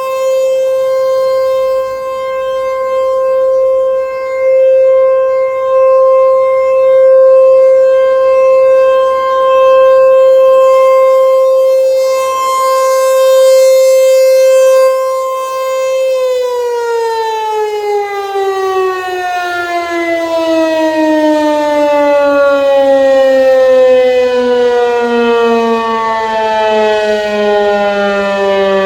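ASC Tempest T-128 AC/DC rotating tornado siren, 6.5 HP DC motor with an 8-port chopper, holding the steady alert tone and swelling and fading as it sweeps. About halfway through the signal cuts off and the siren winds down, its pitch falling steadily.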